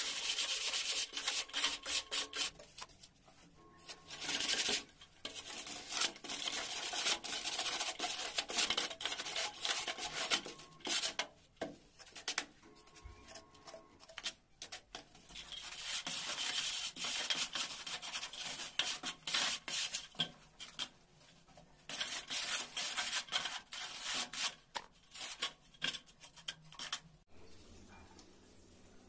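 A metal straightedge dragged back and forth across a dry sand-cement mortar bed to level it: gritty scraping in runs of quick strokes with short pauses, dying away near the end.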